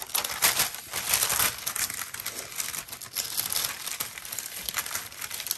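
Sheets of heat-press cover paper rustling and crinkling in irregular bursts as they are handled and leafed through, in a search for a sheet free of sublimation-ink residue.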